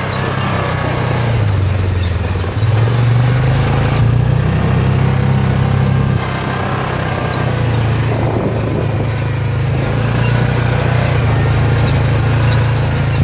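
Yamaha Rhino UTV's single-cylinder engine running steadily while driving, heard from the open cab, with wind rushing past. The engine note sags and then picks back up about two and a half seconds in.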